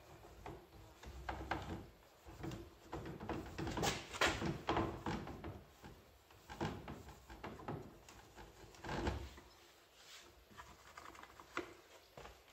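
A cloth towel rubbing and scrubbing over the plastic kidney grille and front bumper of a BMW E46, in irregular strokes with light knocks, loudest about four seconds in and again near nine seconds.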